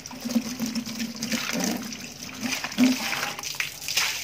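Tap water pouring and splashing into a plastic bucket as hands rub the inside clean. Near the end the water is tipped out in a splashing gush.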